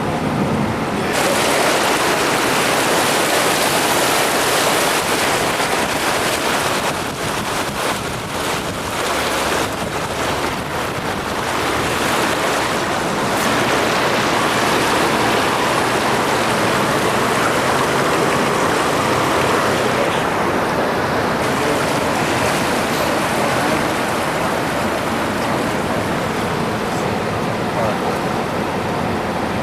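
A car ploughing through deep floodwater: a steady rush of water spraying and washing against the car, starting abruptly about a second in.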